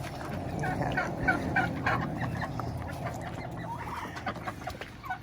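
Chickens clucking: a quick run of short calls in the first couple of seconds, then scattered ones, over the steady patter of rain.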